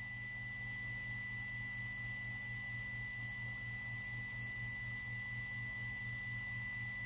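Steady high-pitched pure tone over a low hum from an IRS2092 class D amplifier test bench, the amplifier driven near full output with a 1 kHz sine into dummy load resistors.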